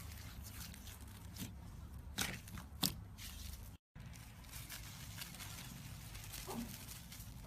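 Slime being squished and stretched by hand, with a few sharp crackles and pops over a steady low hum; the sound drops out briefly a little before halfway.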